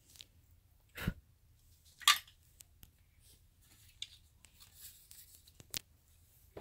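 Plastic dollhouse furniture being handled and set down: a few sharp clicks and knocks, about one second, two seconds and near six seconds in, the one at two seconds the loudest, with faint ticks between.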